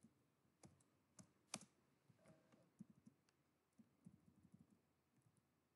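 A few faint, scattered computer keyboard clicks, the loudest about one and a half seconds in, against near silence.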